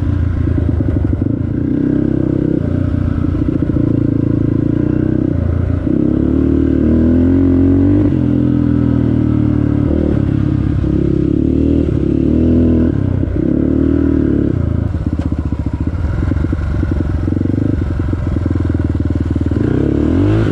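Off-road vehicle engine running under way, its pitch rising and falling again and again as the throttle is opened and eased off.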